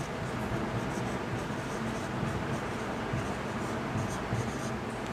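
Marker pen writing on a whiteboard: a run of short strokes as letters are written, over a steady low background hum.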